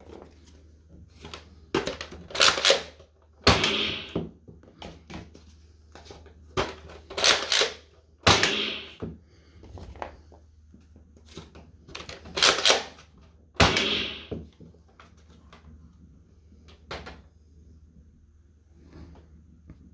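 Loud plastic clacks from a Nerf M41-A pulse rifle's mechanism being worked by hand, about eight sharp strokes, some in quick pairs, with fainter clicks between.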